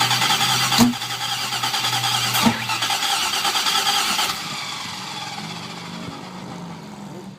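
Engine cranking on its starter for about four seconds without catching, with two sharp knocks during the cranking. After the starter stops, a quieter steady hum carries on.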